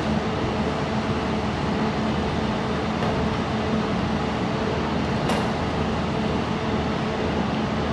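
Steady mechanical hum of a running mold laser welding machine, with a faint click about five seconds in.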